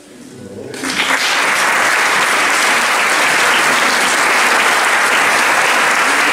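Audience applauding: the clapping breaks out less than a second in and quickly settles into steady, dense applause.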